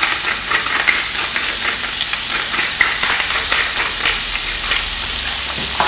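Cubes of salmon sizzling and crackling as they fry in a nonstick frying pan: a steady hiss full of fine crackles.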